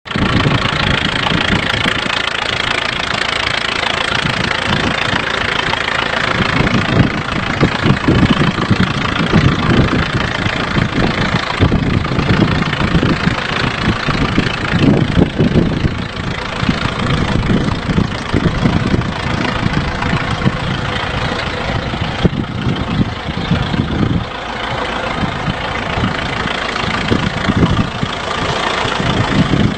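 The engine of an old engine-driven welding machine running steadily, with a rapid, even firing beat.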